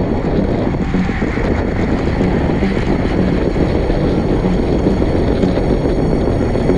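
Steady, loud wind rush buffeting the microphone of a camera riding on a racing bicycle at speed.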